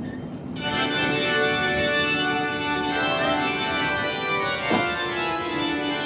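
Organ music from the mine ride's cavern scene: full, sustained chords that come in about half a second in and hold steady.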